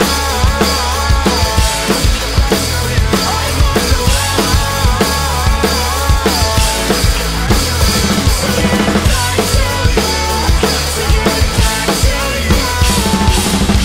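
Drum kit with Soultone cymbals played hard along to a rock backing track: dense kick, snare and cymbal hits over bass and a stepping melody line, with no vocals.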